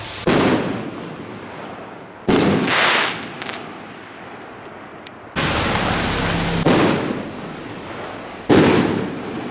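Double Scud firework rockets going off in the air: a series of sudden loud bangs with rushing, crackling noise after them. One bang is followed by more than a second of steady hiss, and the loudest bang comes near the end.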